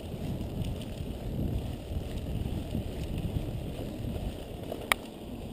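Mountain bike rolling along a dirt trail: a steady low rumble of tyres and frame vibration, with wind on the microphone. One sharp click comes about five seconds in.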